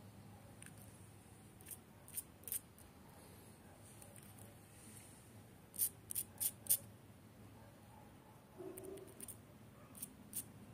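Small dog's claws clicking on stone paving as it paws and steps around: light, sharp clicks in three short clusters, about nine in all.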